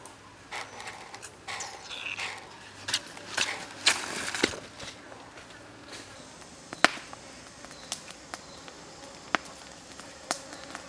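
Rustling and crunching in dry leaf litter and undergrowth through the first half, then a few single sharp snaps about a second apart.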